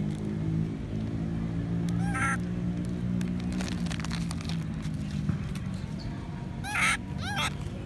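A young long-tailed macaque giving short, high-pitched squealing calls: one about two seconds in and two close together near the end, the second of these the loudest. A steady low hum runs underneath and fades about five seconds in.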